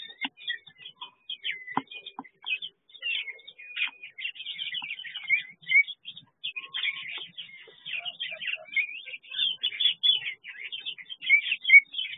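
Several small aviary birds chirping and twittering without a break, many short high calls overlapping, with a few soft knocks in the first couple of seconds.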